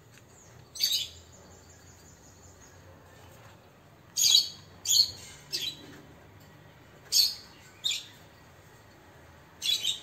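Caged Java sparrows calling: about seven short, sharp, high chirps spread through, some in quick pairs, the loudest about four seconds in.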